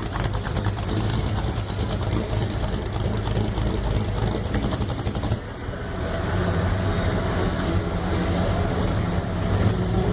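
Classic car engines running with a low, steady rumble. The sound dips briefly about five seconds in, then settles into a steadier idle-like drone.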